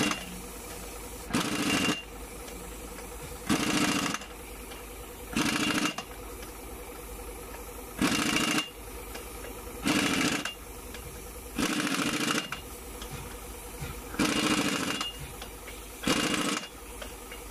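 Pneumatic impact wrench hammering on bolts at a truck's flywheel and clutch. It is run in eight short bursts, each about half a second long and about two seconds apart, over a steady hum.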